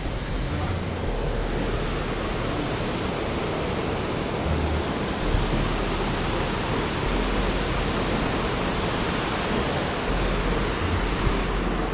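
Steady rush of falling water at a mill's waterwheel and waterfall.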